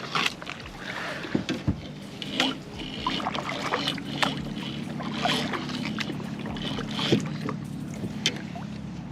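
Knocks, clunks and light water sounds of gear being handled in a fishing kayak, over a steady low hum.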